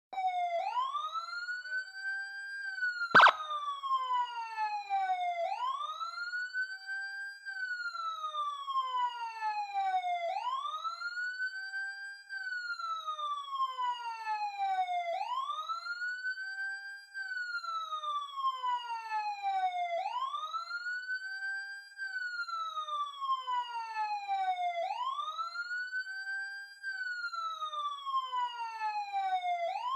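Electronic police siren sounding a slow wail, its pitch rising, holding briefly at the top, then falling, about one cycle every five seconds. A single sharp click about three seconds in.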